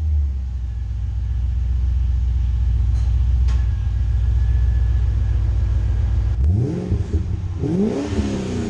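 Holden ute's LS1 V8 exhaust idling steadily, then revved twice near the end, about a second apart, each rev rising and falling back.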